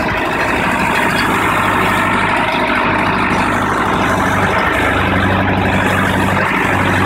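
Mahindra Arjun 605 Novo tractor's diesel engine running steadily under its loader, a deep even hum that grows a little stronger about five seconds in.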